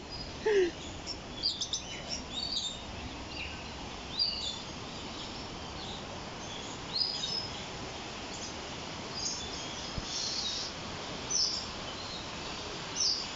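Birds chirping and calling: many short, high chirps scattered throughout over a steady background hiss, with one brief lower call about half a second in.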